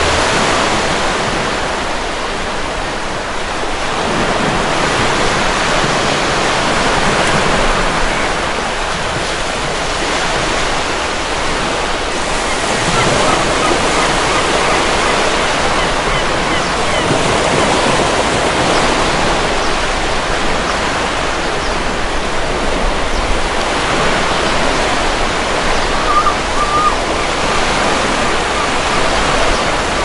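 Ocean surf washing onto a beach: a steady rushing wash of breaking waves that swells and eases gently every few seconds.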